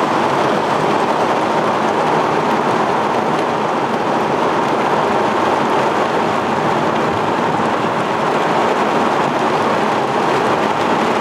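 Heavy rain pouring down in a thunderstorm, a steady, even hiss of downpour with no break.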